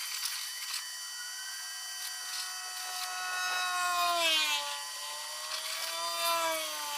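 Vevor 2000 psi electric pressure washer's motor running with a whine that shifts in pitch, dropping about four seconds in and wavering after.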